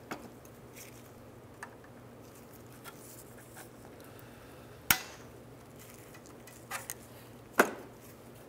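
Small metallic clicks and taps of a hooked pick and a brake spring against the parking brake shoes and backing plate as the spring is worked into its notch. Two sharp clicks stand out, one about halfway through and one near the end.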